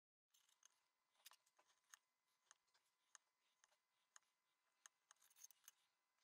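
Near silence, with faint ticks and light scrapes of a hobby knife blade cutting a small paper sail against a steel ruler, coming roughly every half second.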